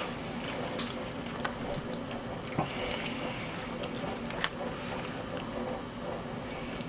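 Wooden chopsticks stirring and lifting sticky, sauced makguksu noodles in a plastic takeaway tray, with wet squelching and a few sharp clicks. The noodles have stiffened into a clump. A faint steady hum runs underneath.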